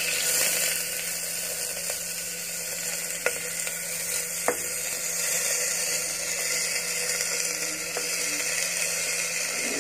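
Wet, soaked rice sizzling as it is dropped by hand into hot ghee in a pressure cooker: a steady hiss, with a couple of faint clicks.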